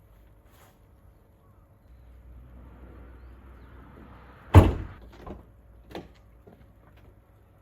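A van door slammed shut with one loud bang about halfway through, followed by two lighter knocks, after some soft rustling.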